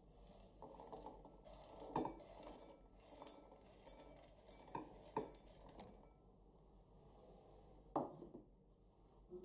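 Popcorn poured from a pan into a glass bowl: faint pattering and rustling with a few sharper clicks, lasting until about six seconds in. A single sharp knock follows near the end.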